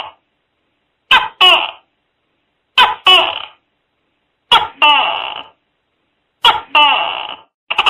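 Tokay gecko calling its two-note "to-kay" call four times, about every two seconds: a short first note, then a longer second note that fades. Near the end a quick rattling run of pulses begins.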